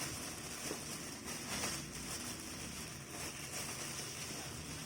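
Steady background hiss with a few faint rustles and knocks of a cardboard box and its packing being handled.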